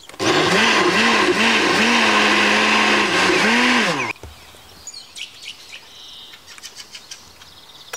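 Electric countertop blender running for about four seconds, puréeing baked tomatoes and spices into ketchup. Its motor pitch dips and recovers several times early on, then holds steady, dips once more and cuts off. Birds chirp faintly after it stops.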